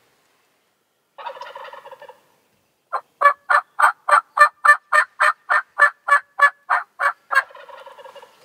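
Eastern wild turkey gobbler gobbling, once about a second in and again near the end. Between the gobbles comes the loudest sound: a fast, even run of about seventeen turkey yelps, about four a second.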